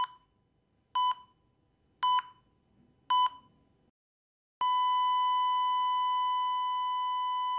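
Heart-monitor sound effect: a short high beep about once a second, four times, then after a brief pause a long unbroken flatline tone of about three seconds that cuts off abruptly.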